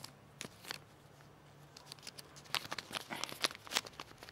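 Small clear plastic bag of metal charms being handled: the plastic crinkles and the charms click inside, a few crackles in the first second, then a quick run of sharper clicks and crinkles about two and a half seconds in.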